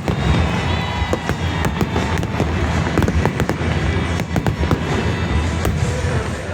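Fireworks display going off: a dense run of bangs and crackles, many a second, over a steady low rumble.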